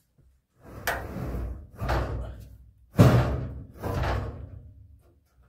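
Heavy 48 V LFP rack battery, about 110 pounds, being shoved home into its slot in a metal server rack: four rough knocking, scraping shoves, sharp hits about a second in and about three seconds in, the second one loudest.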